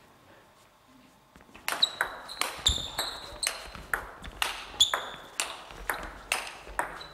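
Celluloid-type table tennis ball clicking off bats and the table in a rally, about three sharp hits a second, starting about a second and a half in after a quiet start.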